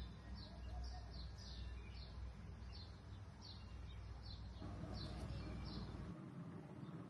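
A small bird chirping repeatedly, short falling chirps about twice a second, over a steady low rumble that cuts off about six seconds in.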